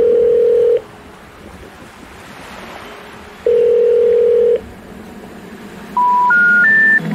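Telephone network tones: a steady ringback-style tone sounds twice for about a second each, a few seconds apart. Near the end come three short rising notes, the special information tone that precedes a 'number not in service' intercept message. Under them is a faint hiss of surf.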